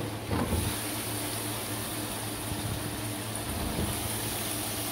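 Raw potato chunks dropped into a wok of hot kofta masala: a few soft knocks about half a second in, then steady sizzling and hissing as they fry.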